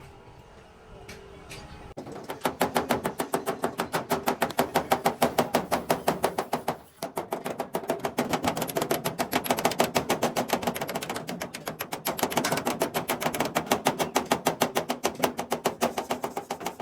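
Rapid hammering on sheet metal, about five strikes a second, starting about two seconds in, with a short break about seven seconds in.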